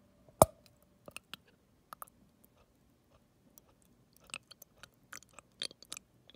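Wet mouth clicks and smacks of saliva and tongue, with a gummy candy on the back of the tongue. One sharp click about half a second in is the loudest, and the clicks bunch up again between about four and six seconds.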